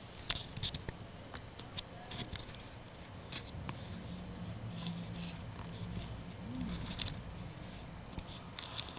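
Irregular crunching and crackling, as of something heavy moving, with a faint low horn-like tone held for a few seconds in the middle, bending up and back briefly near its end.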